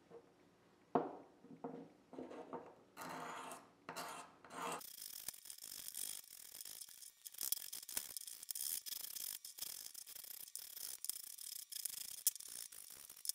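Sandpaper rubbed by hand over the wooden tote of a vintage Stanley No. 3 bench plane, making scratchy sanding strokes. The strokes come a few at a time at first, then quick and close together from about five seconds in.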